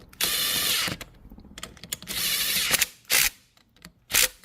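Metal mechanism ratcheting in quick runs: two runs of under a second each, then three short bursts near the end.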